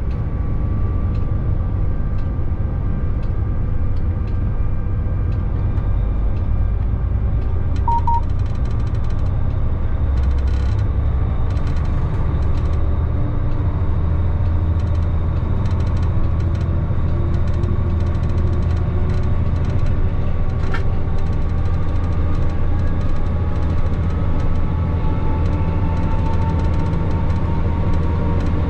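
Steady, loud running rumble of a locomotive heard from inside its cab as it travels light, with a faint whine that rises slowly near the end. A short high beep sounds about eight seconds in, and there are light scattered clicks.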